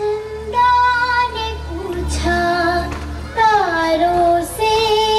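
Recorded song playing: a high singing voice holds and bends long melody notes over a backing track, after a brief dip in level at the very start.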